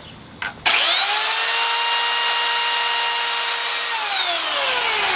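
Chainsaw starting abruptly and quickly rising to full speed, running at a steady high pitch for about three seconds, then winding down with a steadily falling pitch.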